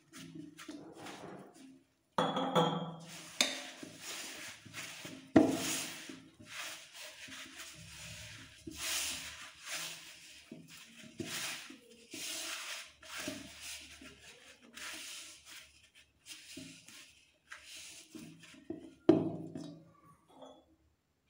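Hand kneading wheat flour and water into dough in a stainless steel bowl: irregular rubbing and scraping of fingers and dough against the metal, with a few louder knocks on the bowl, the loudest about five seconds in and near the end.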